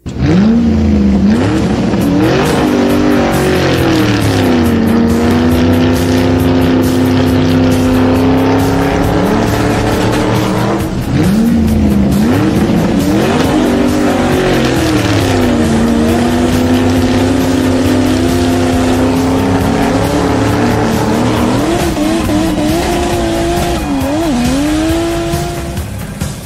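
Racing car engine revving hard, its pitch rising and falling again and again, with tyres squealing as the car drifts; the engine drops out briefly about eleven seconds in. Music plays underneath.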